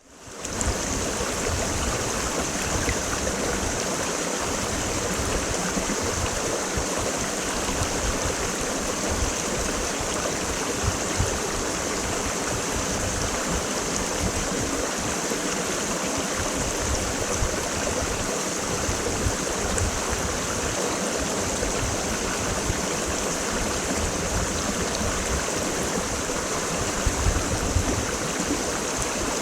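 Creek water rushing steadily, fading in at the very start.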